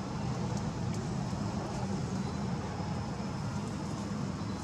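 Steady low rumble of outdoor background noise with no distinct event.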